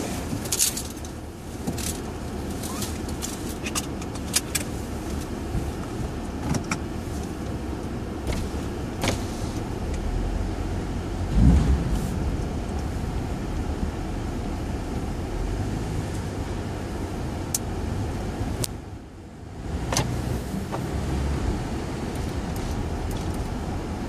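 A 2011 Acura TSX driving slowly, heard from inside the cabin: a steady engine and tyre rumble, with scattered small clicks and rattles in the first several seconds. There is a low thump about eleven seconds in, and the rumble dips briefly quieter near the end.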